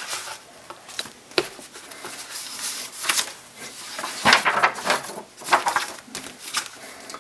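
Paper pages of a photo album or scrapbook being handled and turned: irregular rustling and rubbing strokes, a few sharper than the rest.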